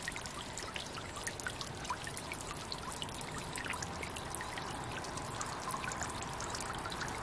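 Steady trickle of water into a fish pond, with many light drips and plinks scattered through it.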